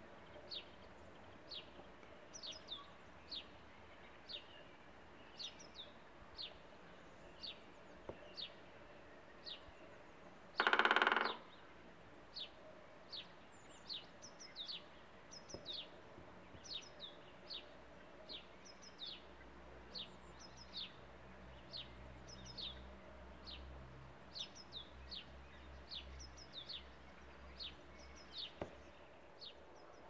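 Short, sharp, high bird calls repeated about once or twice a second, with one loud burst of rapid knocking lasting about a second, about eleven seconds in: a great spotted woodpecker drumming on a wooden nest box.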